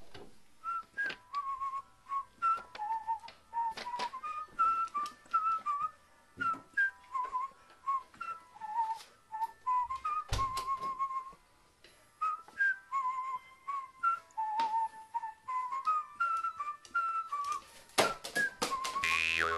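A whistled tune of short stepping notes, with irregular clicks and taps as a crow handles a cup in its beak, and a single dull thump about ten seconds in.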